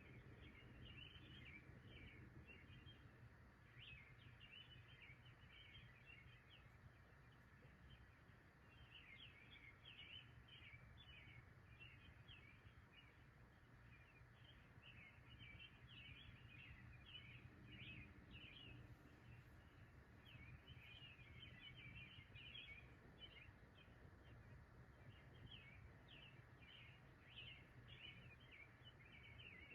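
Faint birdsong: many short high chirps in loose bunches, over a steady low rumble.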